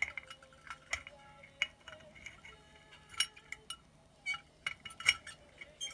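Irregular light clinks and taps of plastic Gunpla model parts knocking against the inside of a glass bottle as they are fitted, the glass ringing briefly after each tap. The loudest knock comes about five seconds in.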